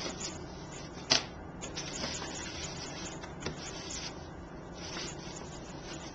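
Paper rustling and light handling taps as ribbon is pushed through slits in a card with a pencil, with one sharp click about a second in.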